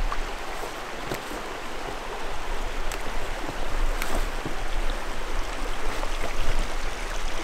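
Shallow river water running steadily, with a few sharp clicks and splashes as an angler wades in to land a hooked trout; the water gets a little louder about two seconds in.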